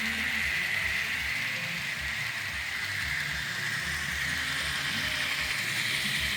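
Kato N-scale model train locomotives running on the track under DCC control: a steady motor whir with an irregular low rattle of wheels and rolling stock on the rails.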